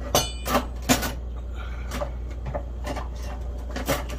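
Metal cutlery clinking and clattering in a kitchen drawer as someone rummages through it for a knife, a handful of sharp clicks, the first ringing briefly. A steady low hum runs underneath.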